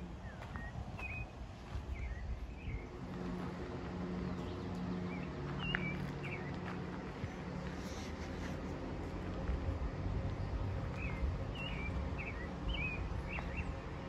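Birds chirping outdoors, short high calls in scattered clusters, over a low steady rumble.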